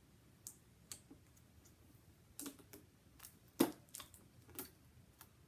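Scattered clicks and knocks of a Cricut Explore Air 2 cutting machine's plastic body being handled, with the loudest knock about three and a half seconds in.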